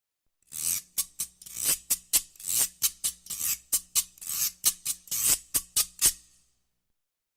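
A hand shaker played in a quick, uneven rhythm of rattling swishes, some swelling into a sharp accent, about three strokes a second. It starts about half a second in and stops about a second before the end.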